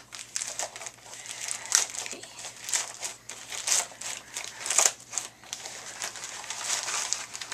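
Plastic mailer packaging crinkling and tearing as it is ripped open by hand, in quick irregular bursts.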